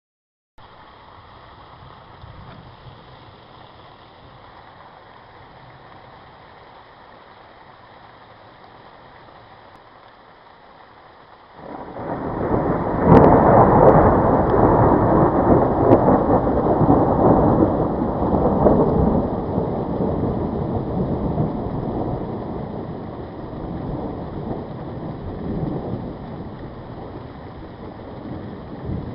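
Steady rain falling, then about twelve seconds in a clap of thunder with a sharp crack breaks into a long rolling rumble that slowly fades under the rain.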